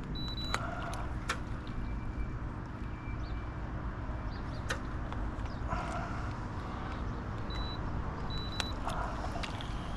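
Wind rumbling on the microphone, with the whirr and clicks of a spinning reel being cranked in short spells as a hooked fish is reeled in.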